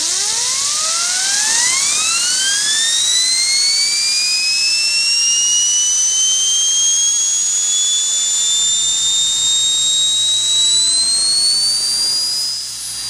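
Small model steam turbine running on compressed air, spinning up. Its high whine climbs steeply in pitch over the first couple of seconds, then keeps rising slowly as the rotor gains speed, over a hiss of air, and drops slightly near the end.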